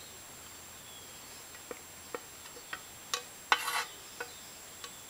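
Spoon knocking and scraping rice out of an aluminium camping pan onto plates: scattered sharp clicks and taps, with a short burst of scraping about three and a half seconds in.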